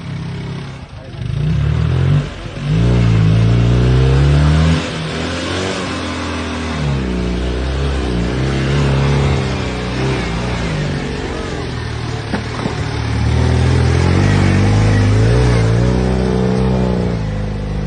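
Citroën 2CV's air-cooled flat-twin engine working under load on an uphill climb, its revs repeatedly rising and falling, loudest about three to five seconds in and again near the end.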